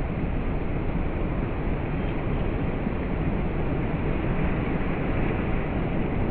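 Rough sea surf washing in and breaking against a rock breakwater: a steady rush of water with a heavy low rumble.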